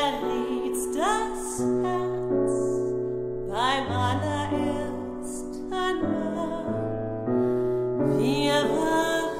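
Soprano voice singing with a wide vibrato over held piano chords, the voice rising into new phrases several times.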